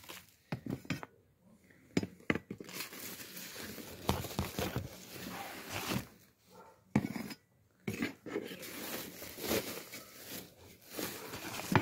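Plastic scoop digging damp potting soil out of a plastic sack and tipping it into a plastic tub: crinkling of the sack, scraping of soil, and a few sharp knocks of the scoop, in irregular bursts with short pauses.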